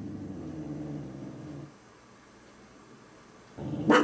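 A dog growling low for about a second and a half, a warning growl at knocking she takes for someone at the door, then a short pause and a single loud bark near the end.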